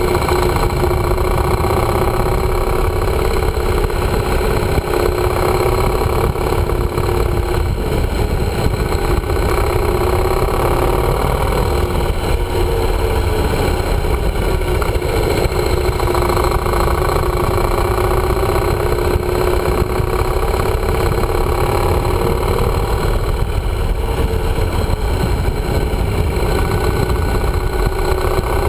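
Yamaha motorcycle engine running under way, its pitch easing off and picking up again a few times, over a heavy low rumble of wind on the bike-mounted camera's microphone.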